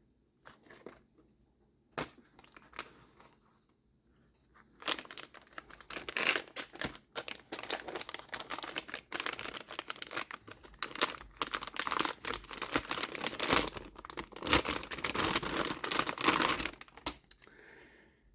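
Packaging being handled and unwrapped from a circuit board: a few light clicks, then several seconds of continuous crinkling and tearing.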